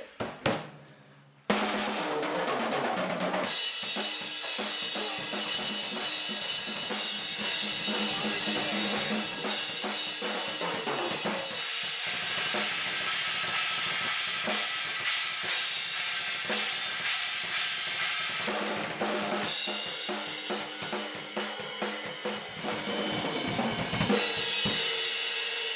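Drum kit played in a long, busy solo of rapid hits. It comes in suddenly about a second and a half in, cymbals wash in a couple of seconds later, and it stops shortly before the end.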